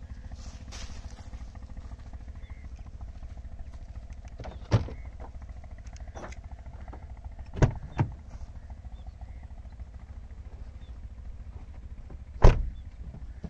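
Car doors of a Honda City shutting: single thuds about a third of the way in and about 12.5 s in, with two quick thuds between, the last one the loudest, over a steady low rumble.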